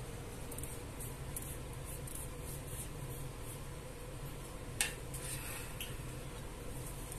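Light clicks and clinks of kitchenware being handled, with one sharper click nearly five seconds in, over a steady low hum.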